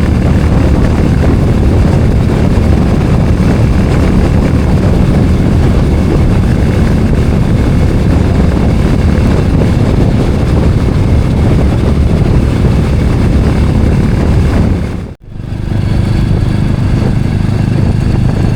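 Royal Enfield Hunter 350 single-cylinder engine running loud and steady as the motorcycle is ridden, with a dense rushing noise over it. The sound breaks off for an instant about fifteen seconds in, then carries on.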